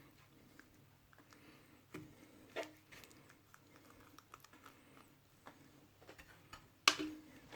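Scattered faint clicks and a few light knocks of kitchen utensils while dough dumplings on a tray are brushed with melted butter, the sharpest knock near the end.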